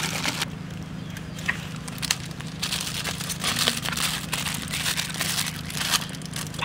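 Aluminium foil crinkling in irregular bursts as a foil-wrapped parcel is handled and laid on a wire grill, over a steady low hum.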